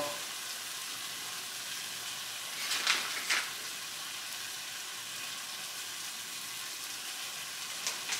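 Crushed-tomato sauce sizzling in a wok over a gas flame, a steady hiss that rises briefly twice about three seconds in.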